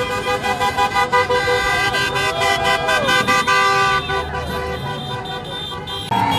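Several car horns honking together in long held blasts over street traffic. They thin out about four seconds in and swell again near the end.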